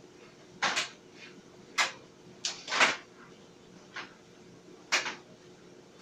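Clothes dryer running with a low steady hum, while the tumbling load knocks and clacks against the drum at irregular moments, about six times, the loudest a little under three seconds in.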